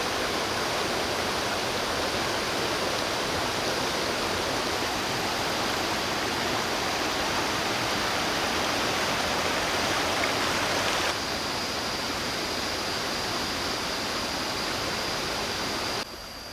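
Rushing water of the Tad Sae waterfall cascades in strong rainy-season flow, a dense steady wash of noise with a thin steady high tone above it. The level steps down slightly about eleven seconds in and drops further near the end.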